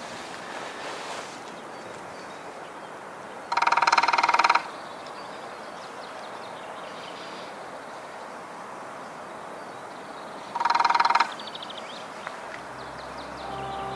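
Lesser spotted woodpecker drumming on the cap on top of a wooden post: two short drum rolls of very rapid blows, each about a second long and ringing, several seconds apart, over steady outdoor background noise.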